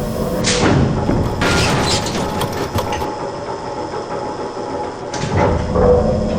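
Dense layered mechanical sound effects: clanking, ratcheting and thuds, with several sudden rushes of noise.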